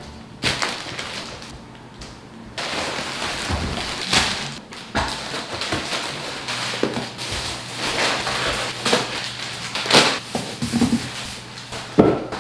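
Thin plastic grocery bags rustling and crinkling as groceries are pulled out of them, with items knocking down onto a stone countertop now and then.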